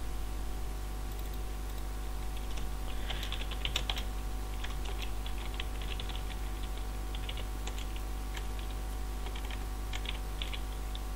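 Typing on a computer keyboard: short irregular runs of keystrokes with brief pauses between them, over a steady low hum.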